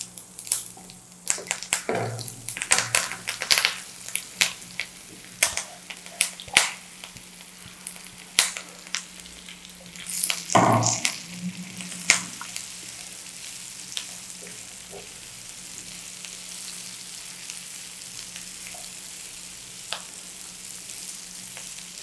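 Boiled baby potatoes sizzling as they are tipped into hot oil with popping mustard seeds, cumin and urad dal in a non-stick pan and stirred with a silicone spatula. There are many sharp clicks and knocks for the first dozen seconds as the potatoes go in and are tossed, then a steady frying sizzle.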